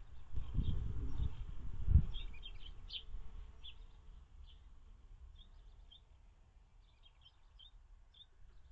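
Birds chirping faintly, with short high chirps scattered throughout. Low rumbling and knocking fill the first couple of seconds, with one louder thud about two seconds in.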